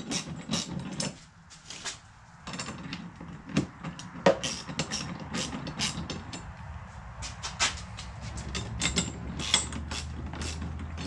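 Hand ratchet wrench clicking in short, irregular runs as a nylon-insert lock nut is run down on a bolt.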